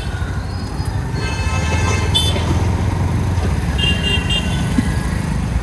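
Street traffic heard from a moving two-wheeler: a steady low rumble of engine and wind, with a short vehicle horn toot about two seconds in and a quick series of toots near four seconds.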